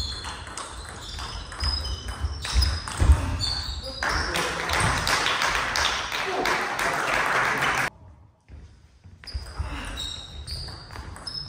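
Table tennis ball hitting bats and table in rallies, short high pings one after another, with voices in the hall and a louder stretch of noise in the middle.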